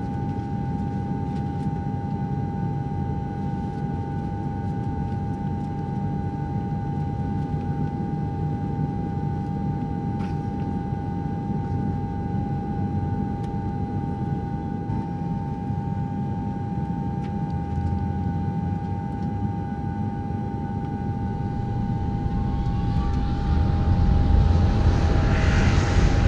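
Jet airliner engines heard from inside the cabin: a steady low rumble with a constant whine. Near the end a rising whine and growing hiss come in as the engines spool up to takeoff thrust, and the sound gets louder.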